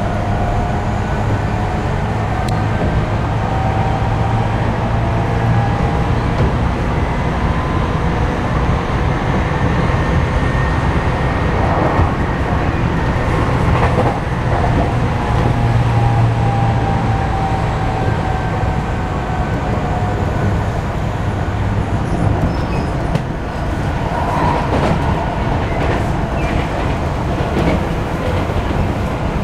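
Tokyu 5050 series electric train running at speed, heard from inside the passenger car: a steady rumble of wheels on rail with a faint whine from the drive, and occasional clicks over rail joints.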